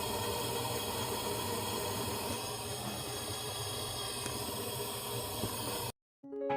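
Steady hiss with a low hum underneath, cutting off abruptly near the end; guitar music starts just after.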